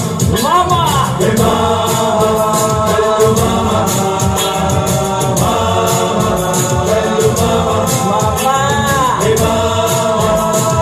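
Bollywood dance music with a fast, steady beat and a sung melody; a vocal line swoops up and down near the start and again about nine seconds in.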